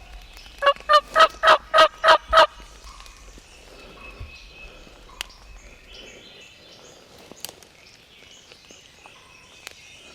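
Wild turkey yelping: a run of about seven evenly spaced, loud yelps over roughly two seconds, then faint small-bird chirps and a few light clicks.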